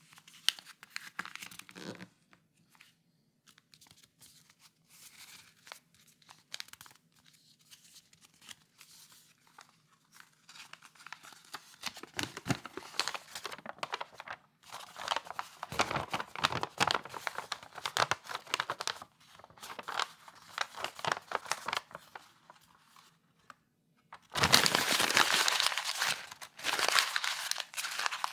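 A blank sheet of paper being rustled, crumpled and torn. Soft, sparse rustles come at first, crackling grows louder from about halfway, and the loudest, densest stretch of a few seconds comes near the end.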